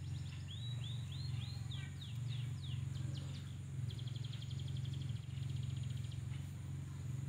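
A small bird singing: a run of short arched chirps, then quick down-slurred notes, then a fast trill about four seconds in. Under it runs a steady low hum, the loudest sound throughout.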